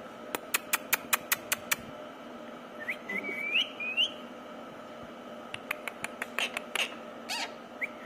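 Indian ringneck parakeet making a quick run of sharp clicks, about five a second, then a short warbling whistle that rises in pitch, then more scattered clicks.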